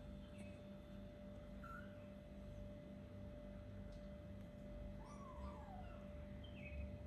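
Four-week-old kittens mewing faintly: a few short high squeaks, then about five seconds in one longer cry that falls in pitch, with another short squeak near the end. A steady low hum runs underneath.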